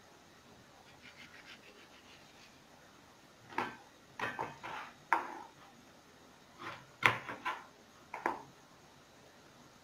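Knife on a cutting board while a ripe mango is peeled and sliced: a faint scraping, then a string of short sharp knocks and taps of the blade and fruit on the board, in two clusters.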